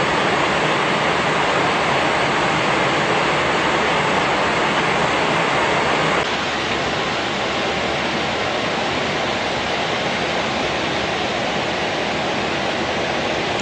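Steady, loud rushing noise with no tone or rhythm in it, dropping slightly in level about six seconds in.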